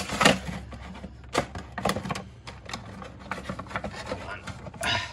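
Cardboard box and clear plastic insert of a Funko Pop vinyl figure rustling and crinkling as the figure is pulled out of its packaging, with an irregular string of sharp clicks and taps.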